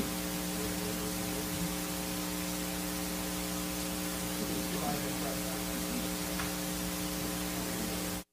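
Steady electrical mains hum and hiss on an open microphone line, cutting out suddenly at the very end.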